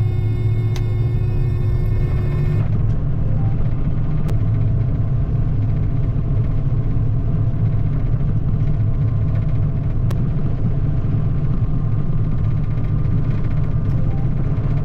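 John Deere 9600 combine running steadily while harvesting wheat: an even, deep rumble from the diesel engine and threshing machinery. A set of steady ringing tones stops about two and a half seconds in.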